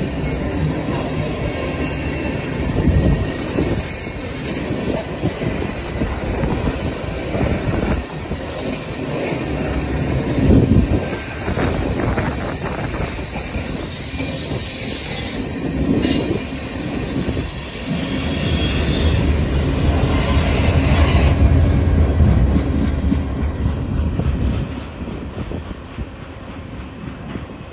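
Freight train of ethanol tank cars rolling past close by: a steady rumble of steel wheels on the rails with thin high wheel-squeal tones and a few heavy knocks. The sound fades near the end as the last car moves away.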